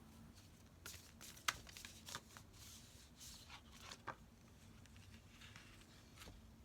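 Faint rustles and light snaps of tarot cards being handled, a handful of separate sounds in the first few seconds and then near quiet.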